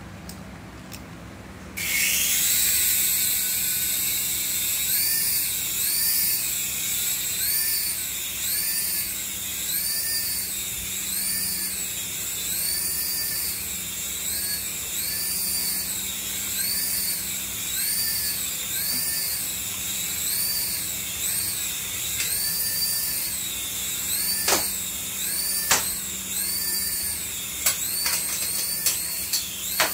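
Small toy RC helicopter's electric motors and rotors whirring in flight: a high whine that starts about two seconds in, its pitch rising and falling about every second. A few sharp clicks near the end.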